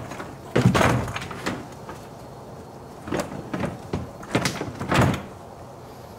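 Hard plastic frunk tub of a Tesla Model Y being pulled loose and handled, knocking and scraping against the car body. A loud clatter comes about half a second in, then several more knocks between three and five seconds, the last one the loudest.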